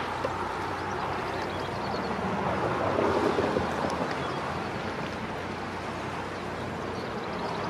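Motor cruiser's engine running on the river: a low steady hum under a broad wash of water noise, which swells briefly about three seconds in.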